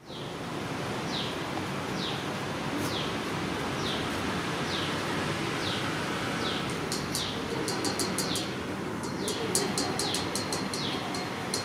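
A bird calling over and over, a short high note sliding downward about once a second, over a steady background hiss. From about seven seconds in, a quick run of sharp high ticks joins it.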